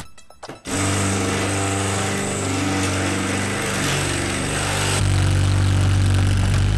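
Cordless drill bit grinding into a door lock cylinder in a drill attack on the lock. The drill stops briefly at the start, then runs steadily, with a heavier low hum from about five seconds in.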